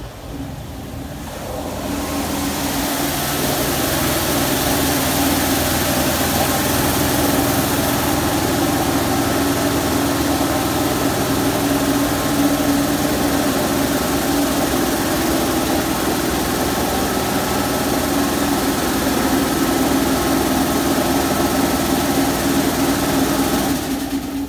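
Mark VII touch-free automatic car wash running a high-pressure rinse: a steady pump-motor drone with the hiss of water jets spraying foam off a pickup. It builds over the first few seconds and drops away just before the end.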